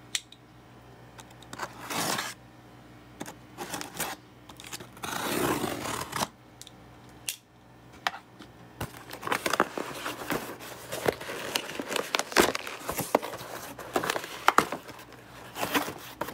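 Cardboard shipping box being opened by hand: the packing tape torn loose and the flaps pulled open. A few tearing bursts in the first half, then a dense run of crackling and scraping from about halfway on.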